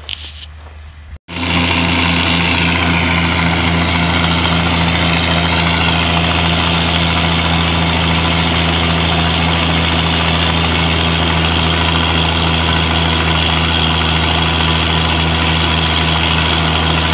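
Oliver 880 tractor engine running steadily, loud and close, starting abruptly about a second in.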